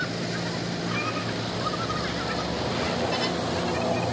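Engine of the machine holding a concrete culvert pipe on a lifting sling, running steadily with a low hum while the pipe is lowered into place.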